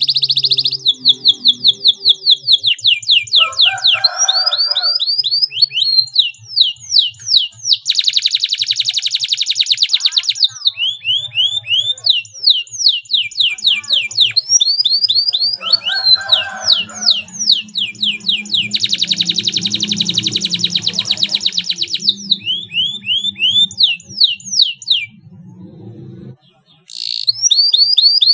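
Domestic canary singing: quick runs of high, downward-sweeping whistled notes, twice broken by a long, tight, rapid roll, with a brief pause near the end before the song resumes.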